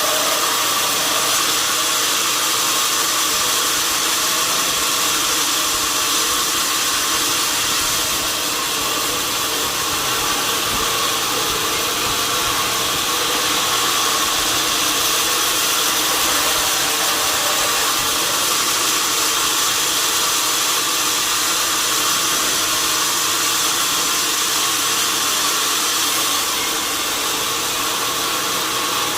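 Sawmill machinery running steadily: a loud, continuous, even machine noise with a faint hum beneath it and no breaks or changes.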